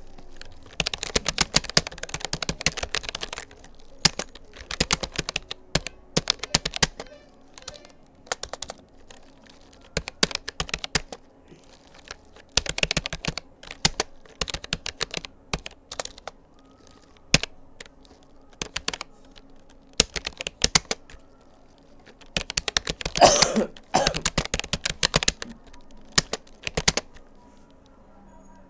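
Typing on a Rapoo computer keyboard: quick runs of key clicks in bursts with short pauses between words. A short, louder noise comes about 23 seconds in, and the typing stops near the end.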